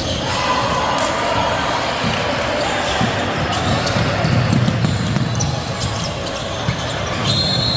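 Live basketball play in a large gym: a basketball bouncing on the hardwood amid the chatter of players and spectators. A brief high squeal comes near the end.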